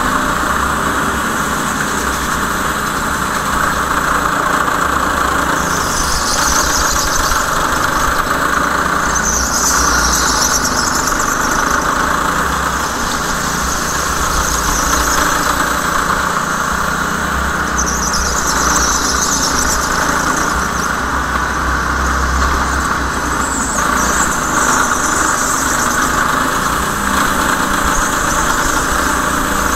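Go-kart running steadily at racing pace, its tyres squealing in four swells of a second or two each as it corners.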